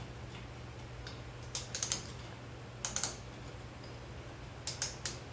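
Ratcheting brake caliper piston return tool clicking in short runs of two to four clicks, three runs in a row, as it winds the rear caliper piston back into its bore.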